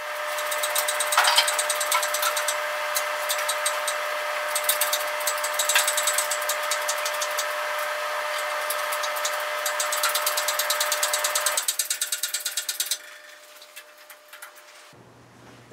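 Cherry picker (hydraulic engine hoist) being worked to lift a car body shell: a dense run of rapid clicking and rattling over a steady whine, which stops about twelve seconds in.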